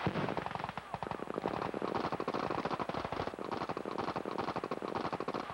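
Rapid automatic gunfire from small arms: a dense, unbroken stream of shots, many a second.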